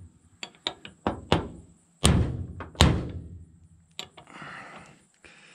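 Hammer blows on a socket, driving the double cardan joint's CV ball outer race into its seat. It is a run of about eight uneven knocks: several lighter taps, then the two heaviest blows about two and three seconds in, and one more a second later.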